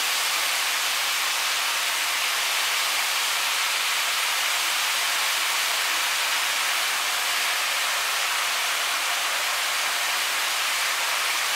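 Beef mince, onion and garlic sizzling steadily in a frying pan as they brown.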